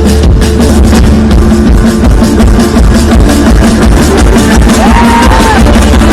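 Loud rock-style background music with drums and electric guitar, driven by a steady beat.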